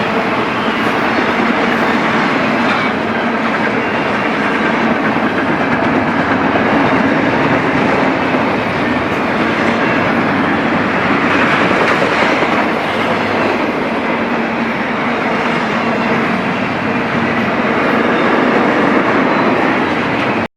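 BNSF intermodal freight train's railcars rolling past, a steady, loud noise of steel wheels running on the rails.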